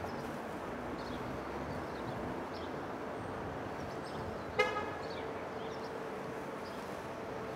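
Steady background hiss, with a single short, sharp horn toot a little past halfway through.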